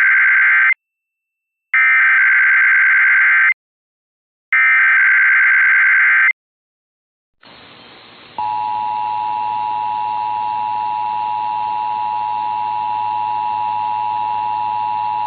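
Emergency Alert System SAME header: three bursts of warbling digital data tones, each just under two seconds, the last ending about six seconds in. A faint hiss follows, and then the two-tone EAS attention signal (853 and 960 Hz together) starts about eight seconds in and holds steady and loud.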